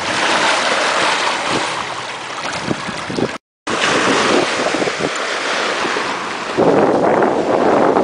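Sailboat under way: wind buffeting the microphone over water rushing and splashing along the hull. The sound cuts out briefly about three and a half seconds in, and a louder surge of bow spray comes near the end.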